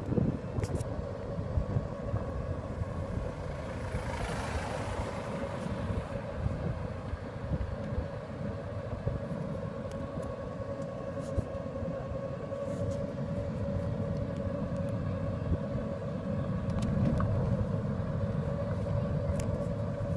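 Buggy driving along a tarmac road: a steady motor whine over low rumbling road and wind noise. A brief rushing hiss comes about four seconds in.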